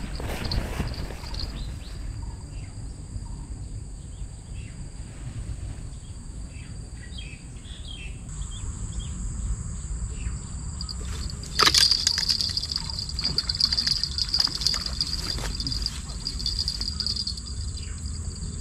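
Insects droning steadily at a high pitch over a low rumble, with a sharp click about twelve seconds in and scattered clicks and knocks after it.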